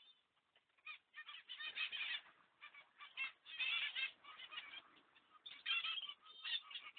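Zebra finches calling: clusters of rapid, short chirps with brief pauses between them, starting about a second in.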